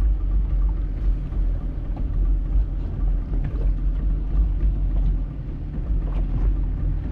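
Small fishing boat's engine running steadily, a low even hum, with some wind and water noise over it.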